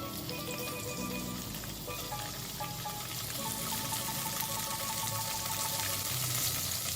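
Firm tofu fingers frying in a pan of oil on a medium heat: a soft, steady sizzle that grows slightly louder toward the end, under gentle background music with held notes.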